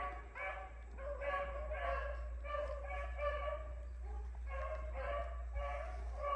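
Rabbit-hunting hounds baying steadily, about two calls a second, the voices overlapping: the sound of hounds running a rabbit's track.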